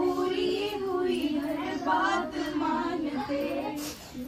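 Young female voices singing a vidai song, a sad farewell song for a daughter leaving her parents' home, in held, wavering melodic lines, with a short break about four seconds in.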